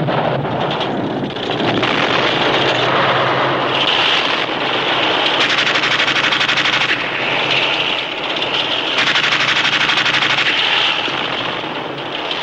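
Battle noise: a tank's engine running under several bursts of rapid machine-gun fire.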